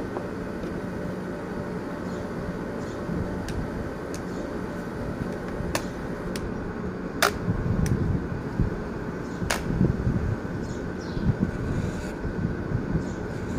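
Corded electric hair clipper buzzing steadily as it cuts hair, with a few sharp clicks about halfway through and low wind rumble on the microphone in the second half.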